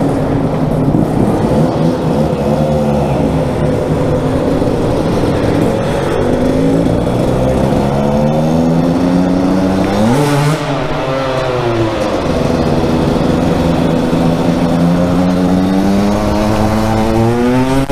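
Aprilia MX 125's two-stroke single-cylinder engine pulling hard under acceleration, its pitch climbing steadily. About ten seconds in there is a gear change, the revs drop, and then they climb again.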